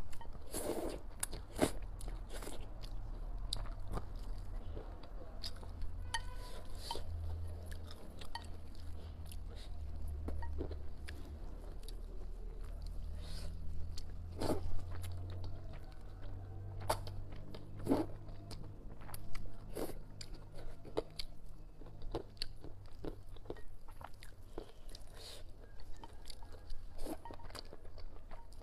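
A person eating saucy rice noodles close to the microphone: slurping strands in and chewing, with many short wet smacks and clicks of the mouth.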